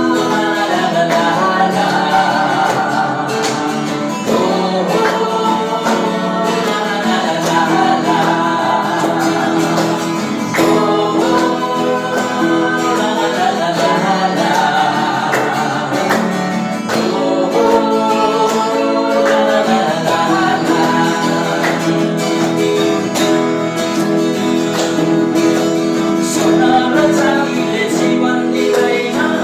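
A Nepali Christian worship song sung by male and female voices together over a strummed acoustic guitar, first a 'ho ho la la' refrain and then, near the end, the start of a verse.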